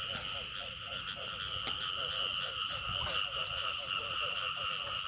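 Frogs calling in chorus: a steady high ringing din with rapid, repeated short croaking notes beneath it.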